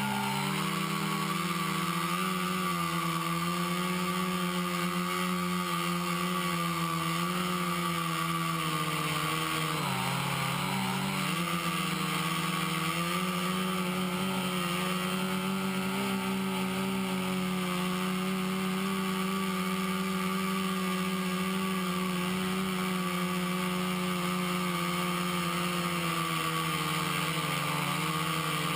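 The brushless motors and 10-inch propellers of a Hoverthings HT-FPV quadcopter hum steadily in flight. The pitch dips and wavers briefly about ten seconds in, then settles again.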